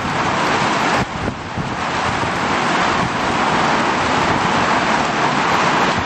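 Torrential rain pouring onto a paved street and parked cars, a loud steady hiss, with a gusty low rumble of strong wind underneath.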